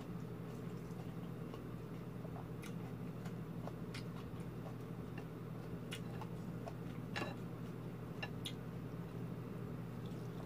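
Eating by hand: scattered short sharp clicks and smacks, roughly one every second or so, from chewing and fingers picking food off a plate, over a steady low hum.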